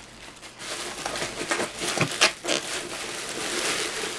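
Bubble wrap crinkling and rustling as hands pull a bubble-wrapped package out of a cardboard box, with a few sharper crackles in the middle.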